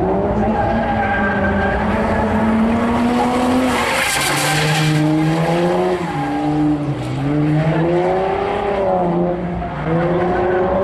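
Car engines revving up and down, several at once with their pitches rising and falling, with a brief rush of tyre or pass-by noise about four seconds in.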